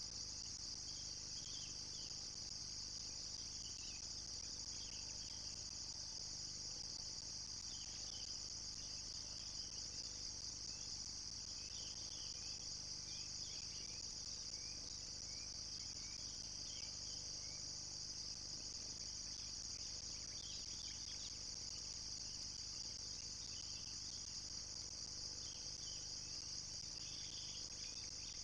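Steady chorus of insects, a continuous high-pitched trill, with short scattered chirps sounding below it.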